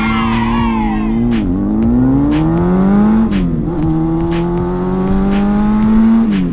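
Motorcycle engine sound effect accelerating through the gears: the pitch climbs, then drops sharply at each shift, three times, over background music with a steady beat. A high falling sound fades out in the first second.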